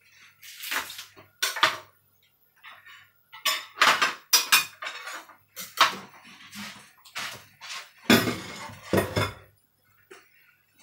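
Kitchen clatter of crockery and utensils being handled: an irregular string of sharp knocks and clinks, the loudest a burst about eight to nine seconds in.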